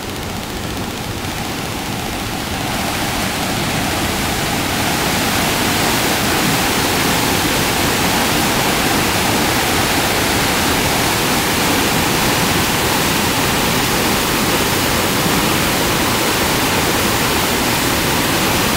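Muddy floodwater of a storm-swollen river rushing through the arches of a stone bridge: a loud, steady roar that grows louder over the first few seconds and then holds.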